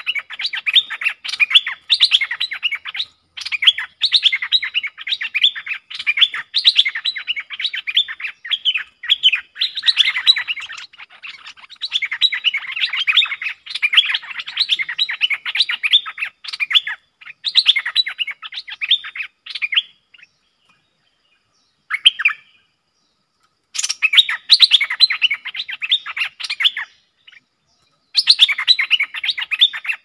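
Bulbuls singing in fast, chattering runs of short chirps: a caged decoy bulbul and a wild bulbul answering each other in a fierce song duel. The singing breaks off for a few seconds about two-thirds of the way through, with one short call in the gap, then starts again.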